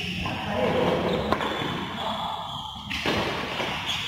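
Badminton racket strikes on a shuttlecock during a rally: a few sharp hits, one about a second in and another about three seconds in, with footsteps on the court. The hits ring out in a large metal-clad hall.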